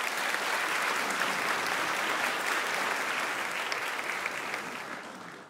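Audience applauding, a dense patter of clapping that tapers off near the end.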